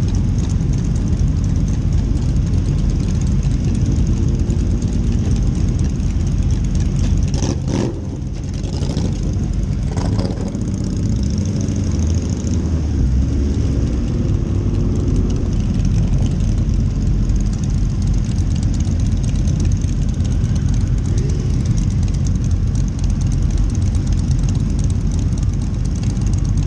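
Motorcycle engines running as a large group of motorbikes rides slowly together, heard from one of the bikes, with the rider's own engine close by. The sound is steady and loud, with a short dip in level about eight seconds in.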